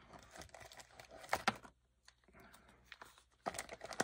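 Plastic lure packaging crinkling and rustling as it is handled, with a couple of sharp clicks about a second and a half in.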